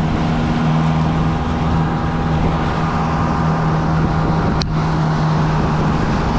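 150-horsepower outboard motor running steadily at speed, a low even hum under the rush of wind and churning water from the boat's wake. A single brief click about two-thirds of the way through.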